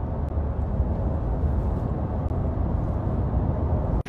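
Road noise inside a moving car's cabin: a steady low rumble.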